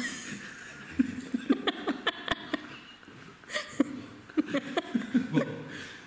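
Men laughing and chuckling in short bursts, starting about a second in and again at around three and a half seconds. A single sharp click comes a little past two seconds.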